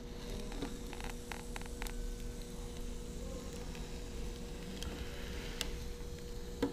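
Low, steady electrical hum from the hot-wire foam cutter setup, with a few faint ticks about a second in while a styrofoam block is pushed through the wire.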